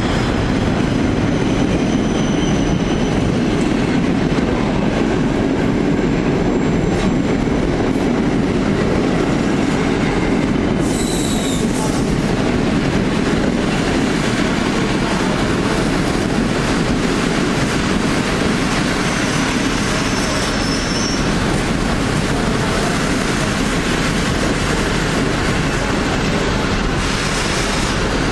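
PKP Intercity passenger coaches rolling slowly past along the platform: a steady rumble of steel wheels on the rails, with brief high wheel squeals, the clearest about 11 seconds in.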